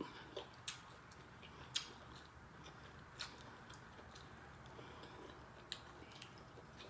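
Faint eating of Dungeness crab: a handful of short, sharp clicks and cracks of crab shell being picked apart, spaced irregularly, with quiet chewing in between.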